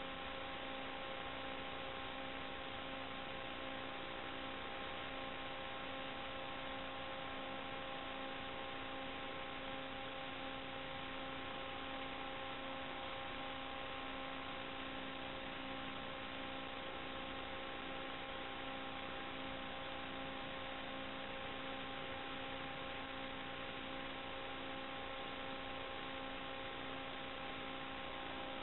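Steady electrical hum with hiss on an FPV receiver's audio channel as recorded by the video recorder: one unchanging buzzing tone with its overtones. The pitch never follows the throttle, so it is not the quadcopter's motors.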